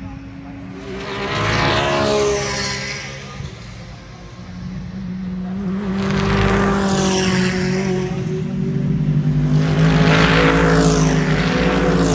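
GT race cars passing one after another at racing speed, three passes in all, each engine note rising and falling as the car goes by. The last pass is the loudest and longest.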